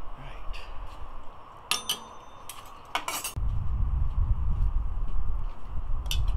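Kitchenware clinking: a few short, sharp clinks of pots and dishes around two and three seconds in, the first with a brief metallic ring. A steady low rumble starts about three and a half seconds in.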